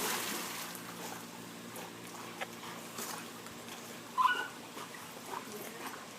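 A dog gives a short, high whine about four seconds in, over a faint steady background with a few small knocks.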